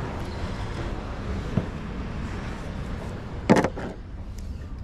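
Steady wind and surf noise, with a small click about one and a half seconds in and a loud, short knock about three and a half seconds in.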